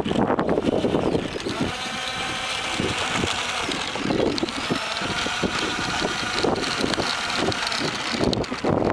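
Twin electric ducted fans of an RC jet running with a steady whine that starts about a second and a half in, with wind buffeting the microphone.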